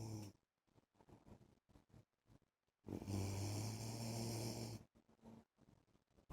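A man snoring in his sleep: one long, low buzzing snore of about two seconds in the middle, with the end of another snore at the very start.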